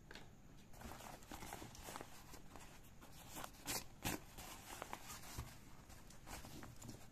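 A fabric waist bag being handled: faint rustling and scraping of the cloth and straps, with a few sharper clicks and knocks, the loudest two close together about halfway through.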